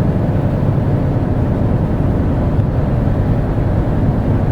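Boat engine running steadily at cruising speed, a constant low drone.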